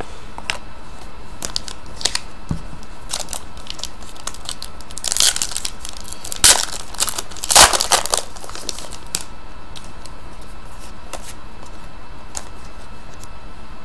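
Trading cards being handled, with plastic wrapping crinkling in short clusters about five seconds and about eight seconds in, and scattered light clicks elsewhere, over a steady hiss.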